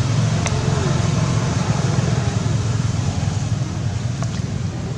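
Steady low rumbling background noise, with a couple of faint clicks.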